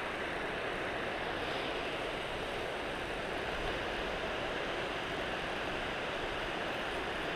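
Steady, even rushing noise with no distinct clicks or strikes.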